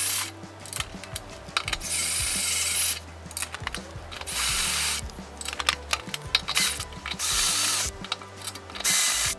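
DeWalt cordless drill boring through the steel channel under a wooden tabletop on its slow speed setting. It runs in several short bursts, stopping and starting.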